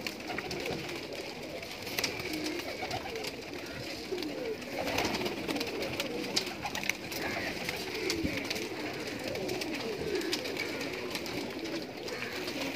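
Many domestic pigeons cooing in overlapping calls, with scattered sharp clicks.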